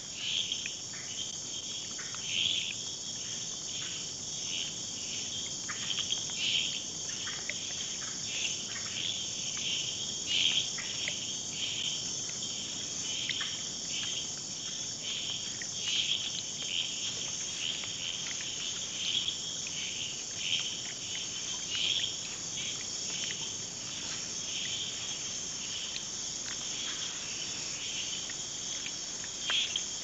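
Rainforest insect chorus at night: a steady high-pitched trilling, with short chirps breaking in every second or two.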